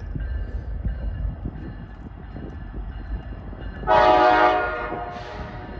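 Air horn of an approaching Norfolk Southern diesel locomotive: one loud blast about four seconds in, then a shorter, fainter one near the end, over a low rumble.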